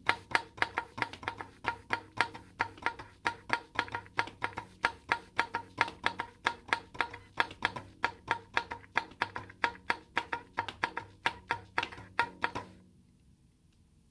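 Soprano saxophone with the bottom half of a 12-inch balloon stretched over its bell, played as a drum: a rapid, even run of sharp percussive hits, about three or four a second, each with a short pitched ring. The run stops suddenly near the end.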